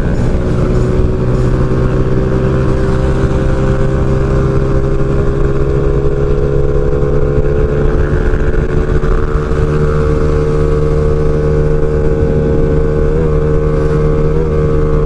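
Yamaha Lagenda 110ZR two-stroke engine, bored out to 63 mm, running hard at high speed, its pitch creeping slowly upward as the scooter keeps gaining speed.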